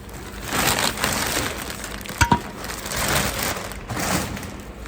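Packaging crinkling and rustling as a new DPF is handled, with two sharp knocks close together a little over two seconds in.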